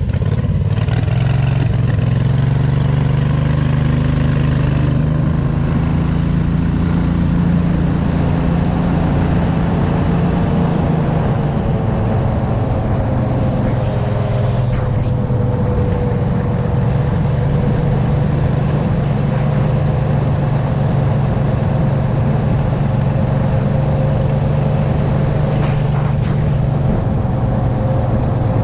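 Homemade off-road go-kart's 670 engine running steadily under way. The engine note eases off briefly about eleven seconds in, then holds steady again.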